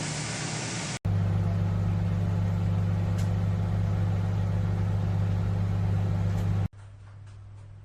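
Microwave oven running: a loud, steady low electrical hum that starts and stops abruptly. It follows about a second of steady rushing noise, and a quieter hum is left after it cuts off.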